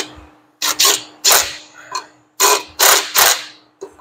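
Cordless right-angle power tool driving bolts into a 1925 Maxwell's flywheel and clutch in short trigger pulls, about eight in four seconds, over a steady low hum.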